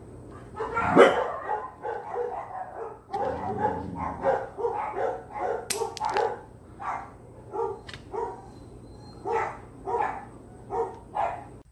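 Shetland Sheepdog–Corgi mix dog barking in a long run of short barks, about two a second, while her nails are being clipped; the loudest bark comes about a second in. One sharp click about six seconds in.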